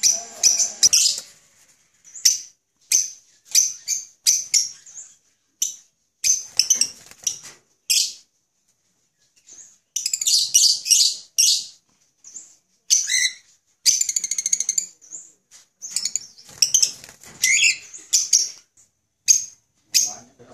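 Small pet parrots, lovebirds and cockatiels, giving short shrill chirps over and over, with longer chattering runs about ten and fourteen seconds in.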